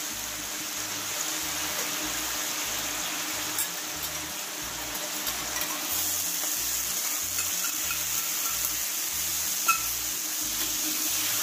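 Sauce of fried ginger, spice paste and a little water sizzling and bubbling in a wok while a metal spatula stirs it, with one sharp click near the end.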